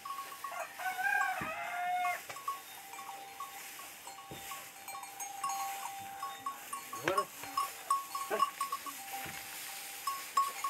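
Bells on a pair of working bullocks jingling in short irregular clinks as the animals walk round trampling crop straw for threshing. A drawn-out high call comes about a second in, and a quick rising call about seven seconds in.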